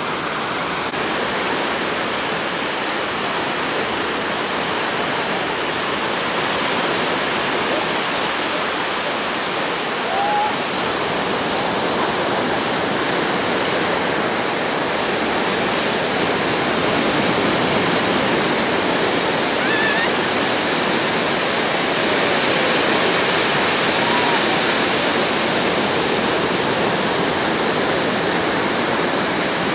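Steady wash of sea surf on a sandy beach, a constant even rush of breaking water.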